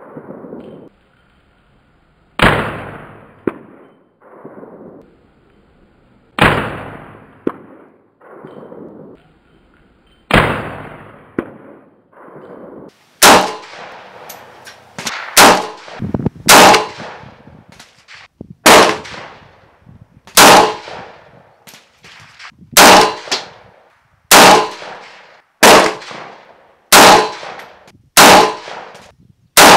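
Colt M4 .22 LR semi-automatic rifle fired in single shots: three shots about four seconds apart, then about a dozen more in a quicker series, one every second or two. Each sharp crack is followed by a fainter knock.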